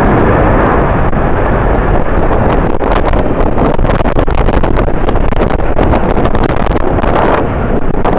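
Strong wind buffeting the microphone: a loud, continuous rumble with irregular gusty thumps.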